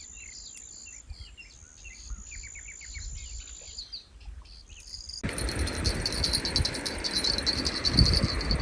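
Small birds chirping over a steady high insect drone. About five seconds in, it switches abruptly to a louder hiss with rapid high ticking and a low rumble.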